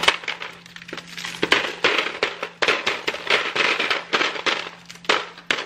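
Ice in a plastic ice tray being handled: a rapid, uneven series of clicks, cracks and crunches as the ice is broken loose and rattles in the tray, with a steady low hum underneath.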